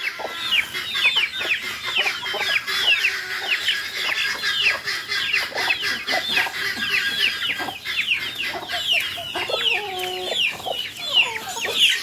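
Free-range chickens: a continuous chorus of short, high peeps falling in pitch, with a deeper drawn-out call about nine to eleven seconds in.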